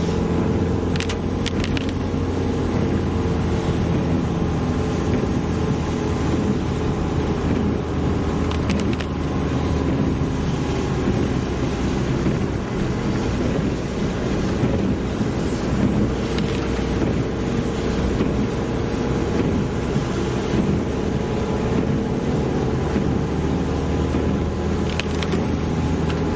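Steady engine and tyre drone heard from inside the cabin of a moving ute, with a couple of faint clicks.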